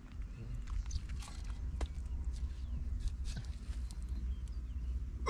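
A wooden stick prying and scraping into dry, cracked clay, with scattered small crunches and knocks as clods break apart, over a low steady rumble.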